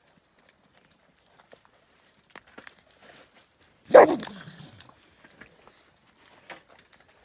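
A dog lets out one loud bark about four seconds in; it falls in pitch and dies away within about a second. Faint scattered ticks sound around it.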